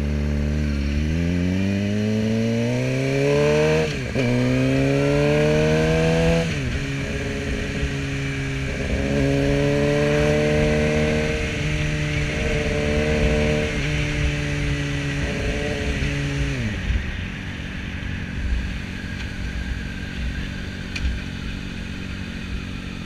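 Sport motorcycle's engine accelerating, the revs climbing, dropping sharply about four seconds in and again near six and a half seconds as it changes gear, then holding a steady cruise. About seventeen seconds in the throttle closes and the engine falls away to a quieter drone under wind and road noise.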